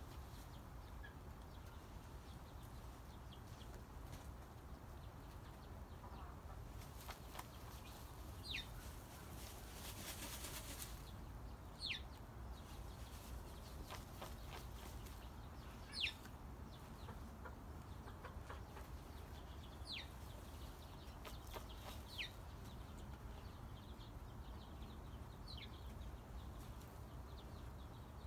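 Hens dust bathing, faintly rustling and flicking dry sand with their wings, with a denser flurry of wing-flutters about ten seconds in. A bird's short, high, falling chirp sounds every few seconds.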